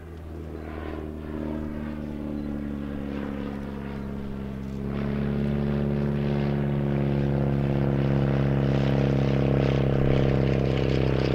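VL Viima II biplane's Siemens-Halske Sh 14 seven-cylinder radial engine and propeller running at steady pitch in flight. The sound grows louder as the plane comes closer, stepping up sharply about five seconds in.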